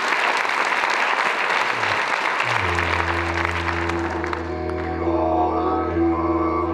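Audience applauding. About two and a half seconds in, a didgeridoo starts a steady low drone with shifting overtones above it, and the clapping fades under it.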